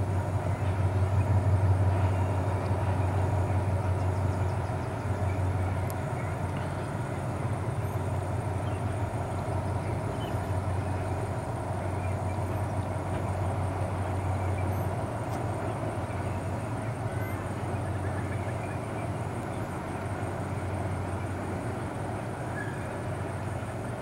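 Passenger train hauled by an Alsthom diesel-electric locomotive running over a trestle viaduct: a continuous low rumble of engine and wheels that swells and eases, loudest in the first few seconds.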